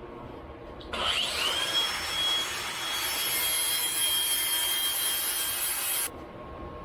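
A small power tool runs with a grinding hiss for about five seconds. Its whine rises as it spins up, then holds steady, and the sound cuts off suddenly.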